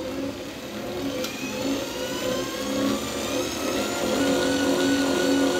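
G.Paniz 3 kg dough mixer running at its slow speed, its hook kneading bread dough; the motor's whine rises a little in pitch over the first few seconds, then holds steady over a rhythmic churning.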